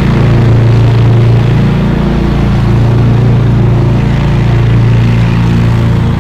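Lawn mower engine running steadily at a constant speed, a loud, even low hum.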